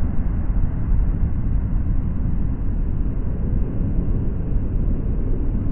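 Surf washing up the beach and over a camera at the water's edge: a steady, muffled low rumble and churn of water with the treble gone, as the foam covers the microphone.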